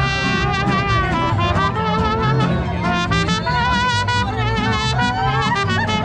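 Mariachi band playing live: trumpets and violins carrying a melody over strummed guitars and a pulsing bass.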